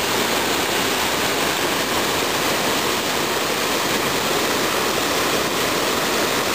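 Fast water pouring out of a road culvert and over rocky rapids in a drainage ditch: a steady, unbroken rush of white water.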